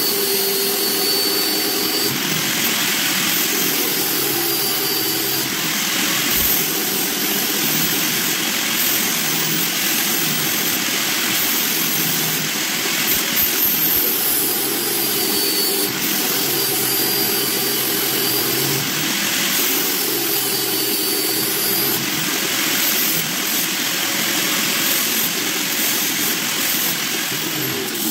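Electric angle grinder fitted with a buffing pad, running steadily at speed with a whine and hum as a small workpiece is pressed against the spinning pad for polishing.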